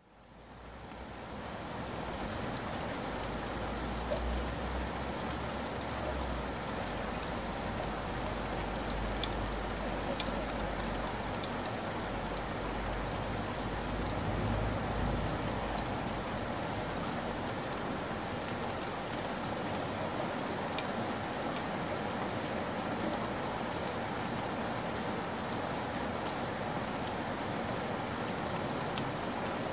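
Steady rain falling on leaves: an even hiss with scattered drop ticks, fading in over the first couple of seconds. A low rumble runs underneath through roughly the first half.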